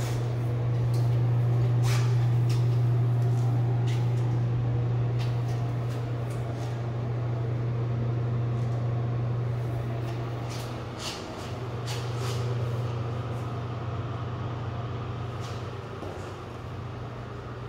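A steady low mechanical hum, dipping briefly about two-thirds of the way through, with a few faint clicks and taps over it.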